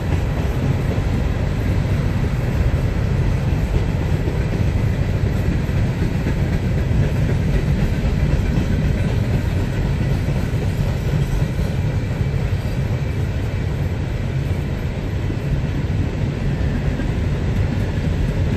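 Empty open-top coal hopper cars of a freight train rolling past on steel wheels: a steady, continuous low rumble of wheels on rail.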